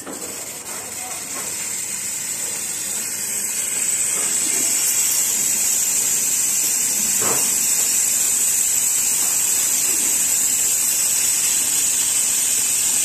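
Steam cleaner's spray gun jetting steam from its brass nozzle: a steady high hiss that builds over the first few seconds, then holds even. The water flow is turned down, so the machine is now giving steam rather than hot water.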